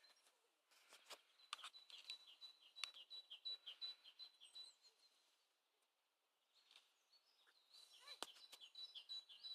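Faint, high, repeated chirps from a small bird, about three a second, in two runs with a gap of a couple of seconds between them; a single sharp click comes near the end.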